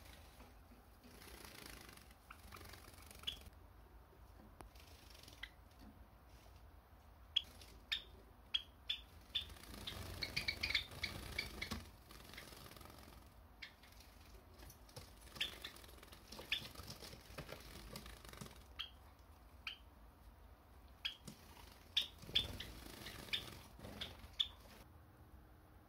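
Java sparrows giving short, high chirps, scattered a second or so apart, with a burst of quicker chirping about ten seconds in.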